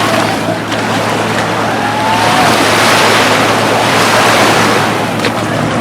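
Atlantic Ocean surf washing onto the beach, a steady rush that swells about midway and eases off near the end.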